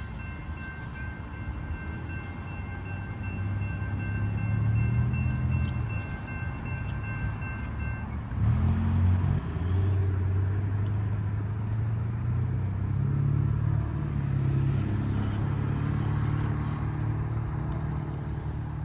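Railroad crossing bell ringing, cutting off about eight seconds in as the gates lift. Road vehicles then drive over the crossing with a low engine and tyre rumble.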